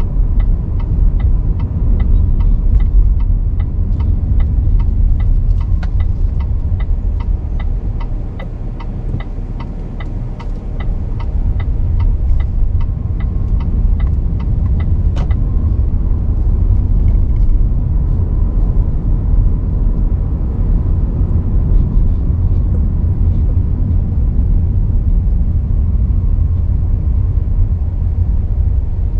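Car driving, with a steady low road and engine rumble. An even ticking, about two a second, runs over it and stops about halfway through.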